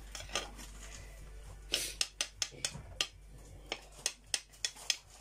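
Metal spoon clicking and scraping against a glass serving plate while spreading mayonnaise over a layered salad: a dozen or so short sharp clicks at an uneven pace, starting a little under two seconds in.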